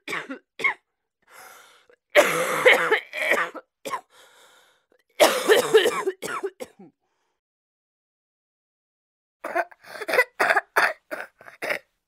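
A person coughing: a few short coughs, then two longer coughing bouts about 2 and 5 seconds in. After a pause comes a rapid run of about eight short coughs near the end.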